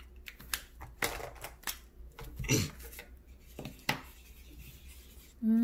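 Marker tip rubbing and tapping on paper as small circles are coloured in: short, irregular scratches and taps. A child's voice starts near the end.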